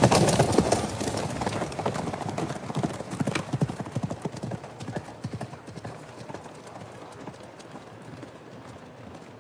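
Horse hooves galloping, a rapid run of hoof beats loudest at the start that fades away over the next several seconds.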